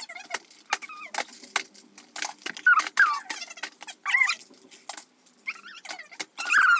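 Close handling noise on the phone's microphone: taps, knocks and rubbing as a young child grabs it. Short high-pitched squeaky vocal sounds from the child come in a few times, about three seconds in, around four seconds, and near the end.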